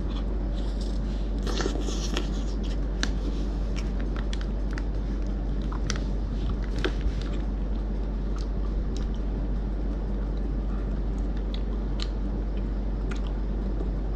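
Close-up biting and chewing of a peanut butter ice cream bar coated with peanuts: scattered short mouth clicks and smacks, with a steady low hum underneath.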